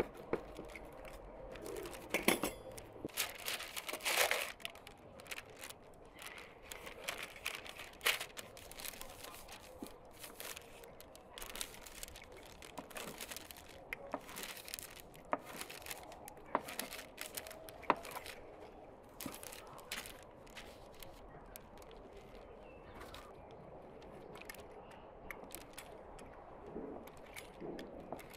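Baking paper rustling and crinkling under hands handling bread dough, with scattered small clicks and snips from scissors cutting the dough.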